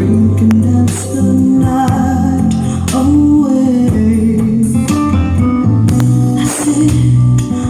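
A Sony Genezi mini hi-fi system playing a CD loudly through its speakers: a song with singing, guitar and heavy bass.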